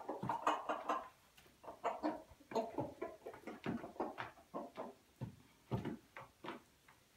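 Chickens pecking and scratching about in loose straw on a wooden floor: irregular taps and rustles, a few each second.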